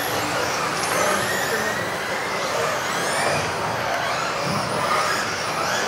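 Several electric 1:10 RC off-road buggies racing together: overlapping high motor whines rise and fall as the cars accelerate and brake, over a steady hiss.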